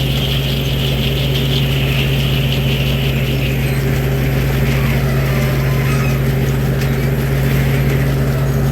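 Almond harvesting machine running steadily: a constant engine drone with a fast mechanical rattle over it.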